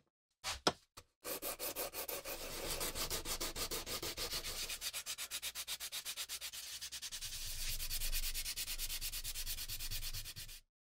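Sandpaper rubbed by hand over the wooden handle of an antique pruning saw in fast back-and-forth strokes, several a second, stopping abruptly near the end. A few light knocks come just before the sanding starts.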